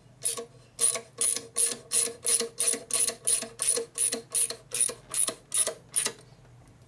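Hand file cutting metal to enlarge a bolt hole: short, even strokes, about three a second, stopping about six seconds in.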